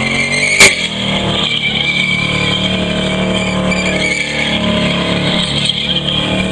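Holden Torana's engine held at high revs through a burnout, with the rear tyres screeching as they spin. A single sharp bang sounds about half a second in.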